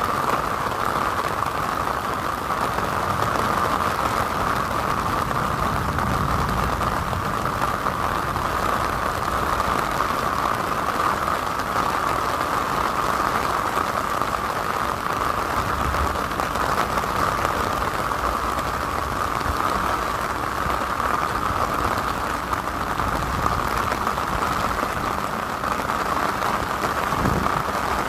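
Steady heavy rain pattering on an umbrella overhead and on wet pavement. A few low swells of traffic on the wet road pass under it.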